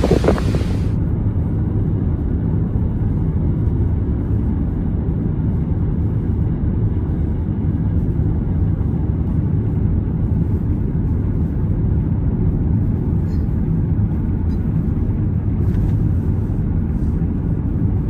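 A brief roar of falling water and wind cuts off about a second in. A steady low rumble of a car driving follows, heard from inside the cabin.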